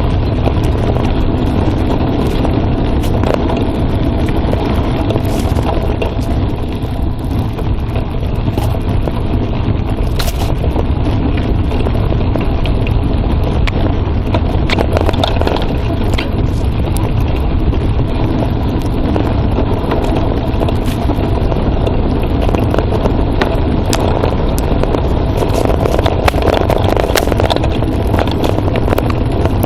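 Mountain bike rolling down a forest trail, heard from a phone microphone mounted on the bike: steady low wind rumble on the microphone, with tyres crunching over the dirt and the bike rattling in frequent short clicks and scrapes.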